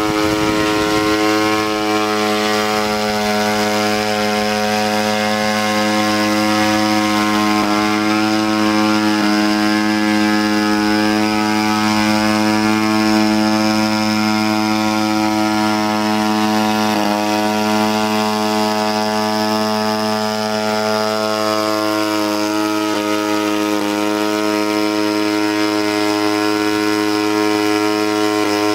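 Engine and rotor of a homemade manned crop-spraying rotorcraft in flight, a loud, steady drone with a clear, even pitch that dips briefly a few times.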